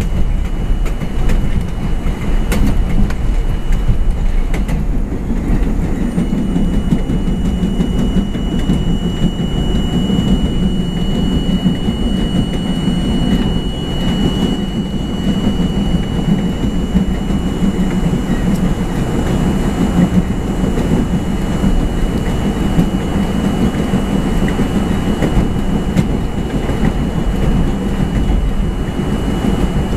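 New York City subway train running at speed, heard from on board: a steady rumble of wheels on rail with some clickety-clack, and a thin, steady high whine.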